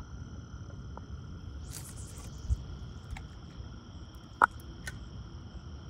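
Steady trilling of night insects at several pitches, with a dull thump about two and a half seconds in and a sharp click a little later.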